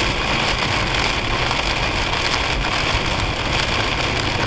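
Heavy rain hitting a car's windshield and roof, mixed with the steady road noise of the car driving on a wet highway, heard from inside the car.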